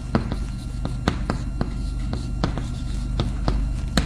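A string of about a dozen sharp, irregularly spaced taps and clicks over a steady low hum.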